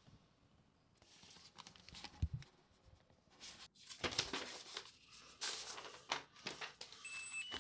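Paper rustling and tearing as an envelope is opened and a card and sheets of paper are pulled out and handled, with a soft thump about two seconds in. Near the end, a musical greeting card starts beeping out its electronic birthday melody.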